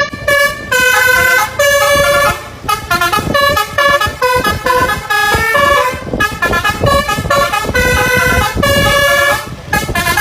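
Basuri 'telolet' musical horn on a bus playing a quick tune of many short notes and a few longer held ones, with a rumble underneath.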